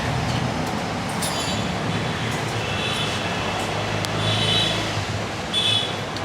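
Roadside traffic noise: a steady low engine rumble with a haze of street noise. Short high-pitched beeps cut through it three times, a few seconds apart.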